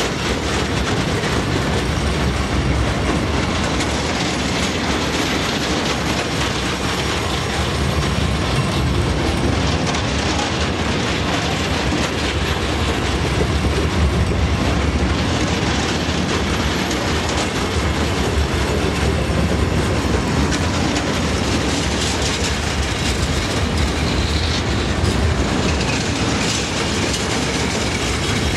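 Empty stanchion timber wagons of a freight train rolling past close by, wheels clicking steadily over the rail joints under a continuous rumble.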